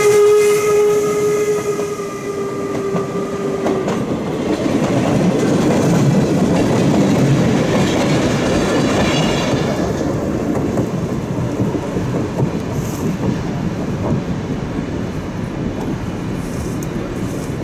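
The steam whistle of York 17, a replica 4-4-0 steam locomotive, is held until about four seconds in as the engine passes. Then the passenger coaches' wheels clatter over the rail joints as the train rolls by, loudest partway through and easing off as it draws away toward the tunnel.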